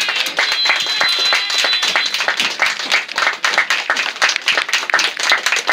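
Spectators clapping and applauding at full time. About half a second in, the referee's whistle sounds one long steady blast of about a second and a half over the applause.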